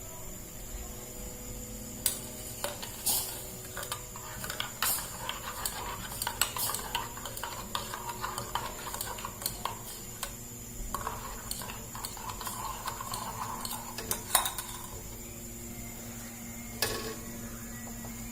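A metal spoon clinking and scraping against a small pot in irregular strokes, stirring lemon juice and ground ginger as it heats over the fire. The strokes stop about three seconds before the end, with one last clink near the end.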